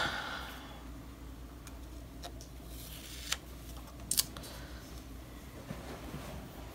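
A few light clicks and taps from handling a paper planner and sticky notes, the loudest a quick double tap, over a low steady hum.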